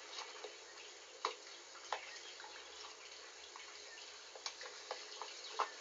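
Faint steady hiss with scattered small clicks and rustles. A few sharper clicks come about a second in, near two seconds, and just before the end.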